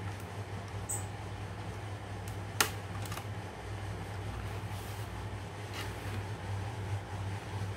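Plastic case clips of an Asus X441BA laptop clicking loose as the case is pried apart by hand: one sharp snap about two and a half seconds in and a few fainter clicks, over a steady low hum.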